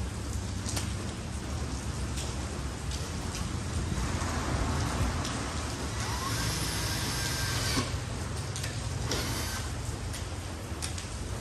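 Cordless drill running against the rear spoiler to bore a screw hole, a harsh grinding stretch from about four seconds in that cuts off suddenly near eight seconds.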